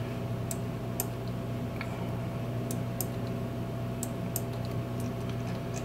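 Scattered sharp clicks of a computer mouse and keyboard, about eight over the few seconds, as sketch lines are selected and deleted in CAD software. Under them runs a steady low hum.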